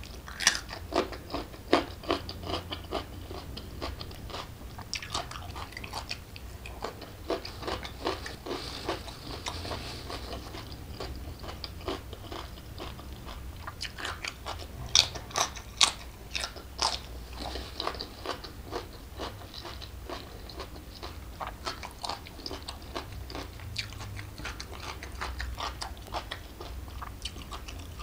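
Close-miked biting and chewing of crunchy raw vegetables, a run of sharp wet crunches throughout. The loudest few come together about halfway through.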